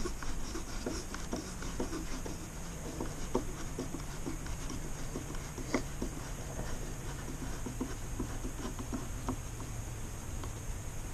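A hand screwdriver turning a screw in a metal window trim strip: a run of small irregular clicks and scrapes as the screw is worked round, over a steady low background noise.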